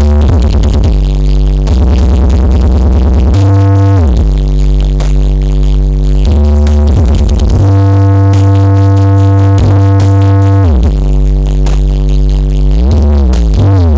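Electronic dance music played loud through a large horeg carnival sound system with many bass cabinets, heavy on long sub-bass notes that repeatedly slide down in pitch.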